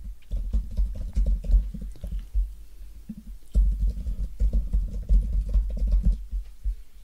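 Rapid typing on a computer keyboard, keystrokes clicking in quick bursts with dull thuds, pausing briefly about three seconds in and tapering off near the end.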